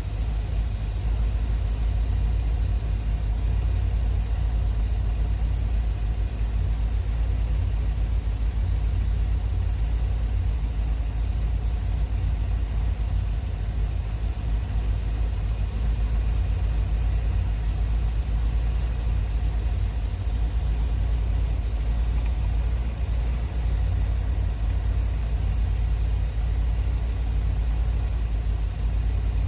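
1981 Corvette's 350 V8 idling steadily, a low even rumble with no revving, while its carburetor is tuned; the owner judges it to be running rich.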